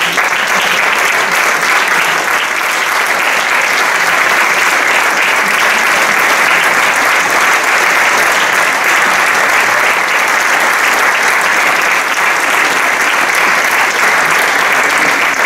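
Audience applauding, steady and unbroken.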